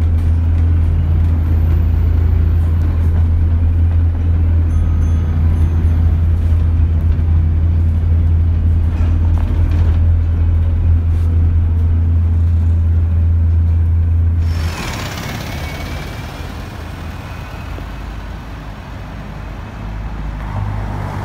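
Alexander Dennis Enviro200 MMC single-deck bus's diesel engine running, heard inside the saloon as a loud steady low drone. About fifteen seconds in it gives way to quieter street traffic noise as the same bus pulls away.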